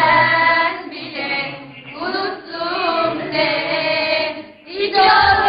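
A group of girls singing together in loud, slightly ragged unison, holding notes in phrases with a short break about four and a half seconds in.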